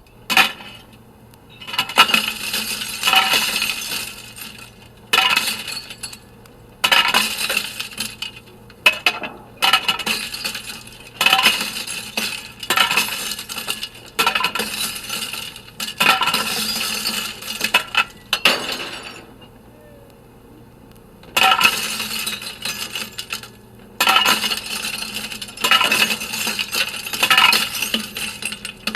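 Glass breaking again and again: about a dozen separate crashes, each with a second or two of clinking, ringing shards, and short pauses between them.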